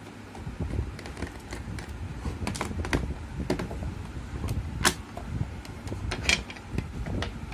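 Digital multimeter's plastic case being unscrewed and opened by hand: scattered small clicks and creaks of plastic and screwdriver, with a sharp click about five seconds in and another just after six seconds, over a low steady rumble.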